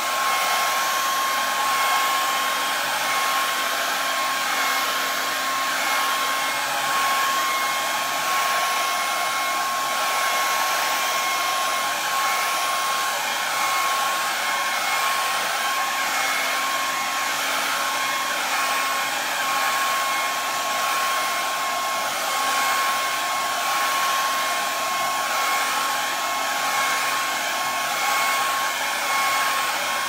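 Handheld hair dryer running continuously, blowing poured acrylic paint across a canvas: a steady rush of air with a constant high whine.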